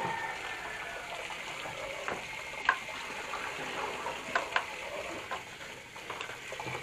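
Steady watery hiss from a pot of paksiw with vinegar just added, broken by a few short, sharp clicks.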